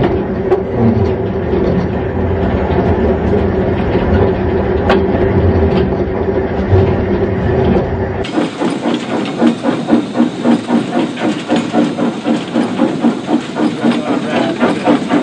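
Steam locomotive working hard up a steep bank: a steady rumble with hissing steam, then, about eight seconds in, a sharper run of regular exhaust chuffs.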